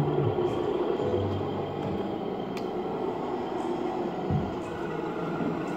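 Radio-controlled model trucks running on an indoor track: a steady engine-like hum with low held tones that come and go, and a single low thump about four seconds in.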